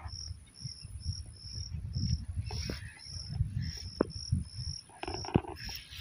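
A cricket chirping steadily in an even rhythm, about two short high chirps a second, over a low rumble.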